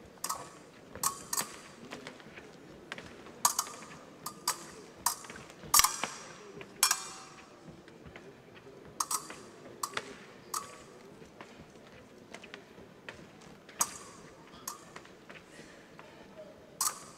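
Épée blades clashing and beating against each other: sharp metallic clinks that ring briefly, coming irregularly, singly and in quick pairs, a dozen or more times.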